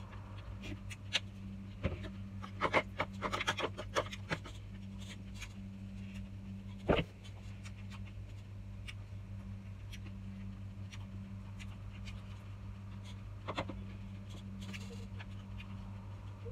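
Close-up eating sounds of chewing salad vegetables and fruit, with a cluster of short crackly crunches a few seconds in and one sharp click about seven seconds in, over a steady low electrical hum.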